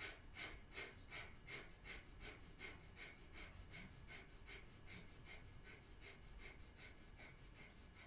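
Breath of fire: rapid, rhythmic, forceful exhalations through the nose, powered from the navel, faint and even at about three breaths a second.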